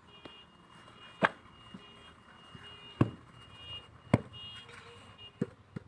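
Sharp knocks and slaps from wet clay being packed into a wooden hand brick mould and the mould being handled: three distinct knocks spaced a second or more apart, then two smaller ones near the end.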